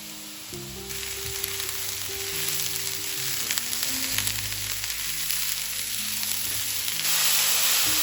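Food sizzling in hot oil in a frying pan, growing louder about a second in and louder again about seven seconds in, with soft background music.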